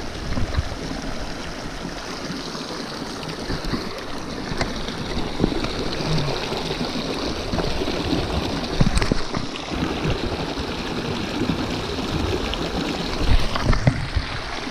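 Shallow mountain stream rushing over rocks in small cascades, a steady wash of water, with a few short low bumps.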